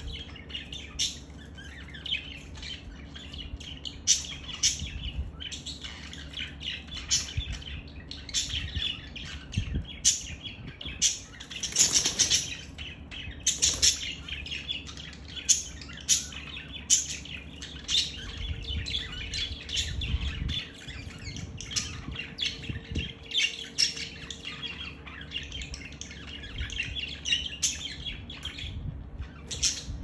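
Budgerigars chattering with rapid, high chirps and squawks, with bursts of wing flapping.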